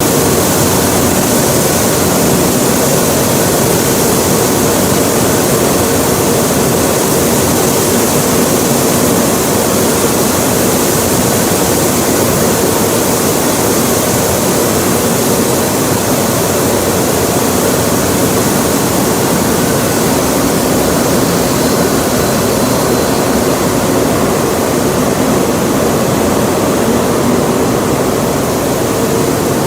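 Flour mill machinery running together: a loud, steady mechanical din with a faint low hum underneath.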